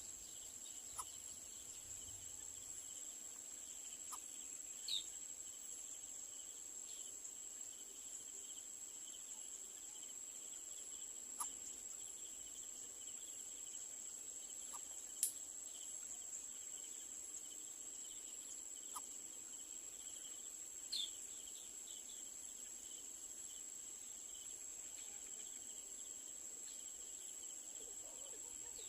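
Steady insect chorus: a continuous shrill high note with a second, pulsing trill beneath it. A handful of short, sharp chirps break in here and there.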